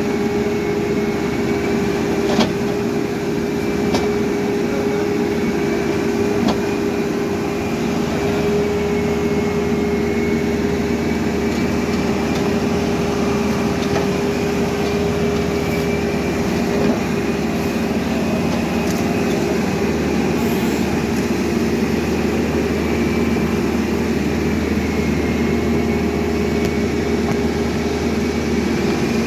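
Cat backhoe loader's diesel engine running steadily under load, with a steady high whine above it and a few short knocks.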